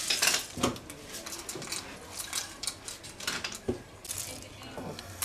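Dry hazelnut shells rattling and clattering as a hand scoops through them in a wooden bowl and drops them into a stainless steel teapot. A run of light clicks, busiest in the first second.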